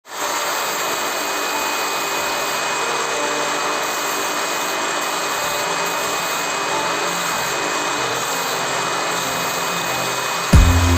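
A woodworking power tool running steadily, an even whirring hiss. Music with heavy bass beats cuts in near the end.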